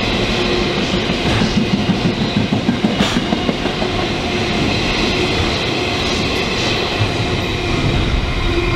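Container wagons of a freight train rolling past at speed, the wheels clattering over the rail joints, loudest about one and a half to three seconds in. The last wagon goes by about eight seconds in.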